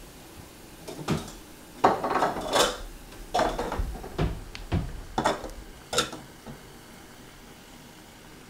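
Footsteps, suit fabric rustling and soft knocks as two people sit down on a leather sofa. It comes as a run of irregular short sounds over about five seconds, loudest near the start.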